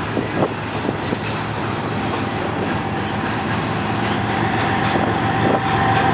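Long freight train rolling past, its rear pushing diesel locomotive drawing near: a steady rumble that slowly grows louder, with a steady high tone coming in about halfway through and strengthening.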